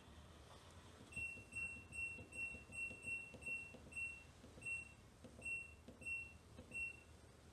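LG 6.5 kg washing machine's control panel beeping as its buttons are pressed to set up the wash: about a dozen short, identical high beeps, in quick succession at first and then more spaced out.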